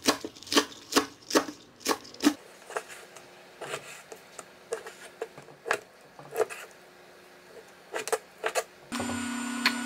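Chef's knife chopping on a plastic cutting board, a sharp knock with each stroke: about three a second through green onion stalks at first, then slower, sparser cuts through raw chicken breast. Near the end a steady hum begins.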